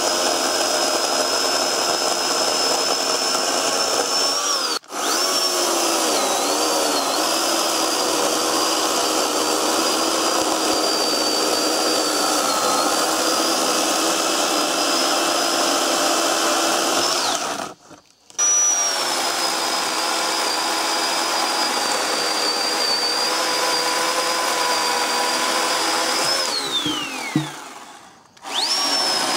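Oregon 40V cordless electric chainsaw running as it cuts into logs: a steady high-pitched electric motor whine whose pitch dips slightly at times. Near the end the whine glides down as the chain spins down, then the saw starts up again.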